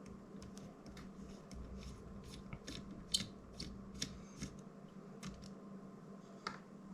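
Scattered small clicks and taps of hand tools and tiny screws being handled during drone disassembly, irregular and a few per second, over a faint steady hum.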